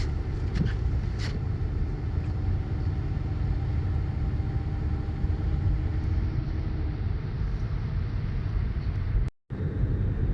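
Strong snowstorm wind blowing and buffeting the microphone, a heavy low rumble with gusts. The sound cuts out completely for a moment about nine seconds in.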